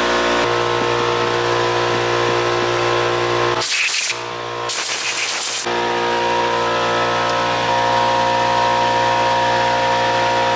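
Shop air compressor running with a steady hum. About four seconds in it is briefly replaced by two short bursts of hiss.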